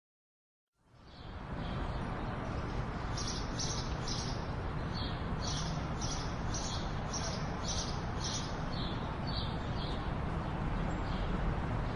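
Birds chirping in short, repeated calls, about two a second, over a steady rushing background ambience that fades in after about a second of silence.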